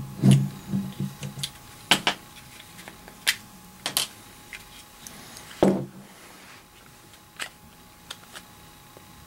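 Scattered sharp clicks and taps of small gun parts being handled as a Glock pistol is taken apart, with the louder ones about two, four and six seconds in.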